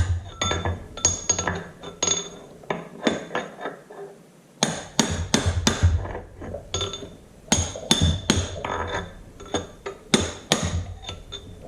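Hammer tapping a thin sheet-metal dirt shield onto a tractor's front wheel spindle: a run of light, irregular taps, each with a short metallic ring, with a brief lull about four seconds in.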